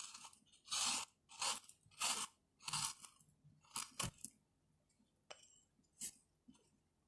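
Scraping the soft inside of a banana peel: a series of short, wet, crunchy scraping strokes, five or six in the first four seconds, then two fainter ones.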